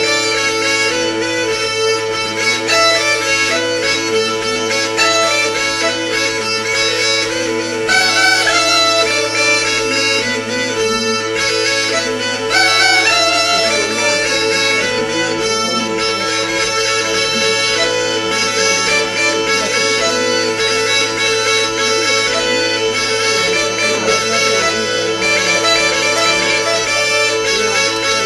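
Two Hungarian bagpipes (duda) playing a folk tune together: a steady drone under the reedy melody of the chanters.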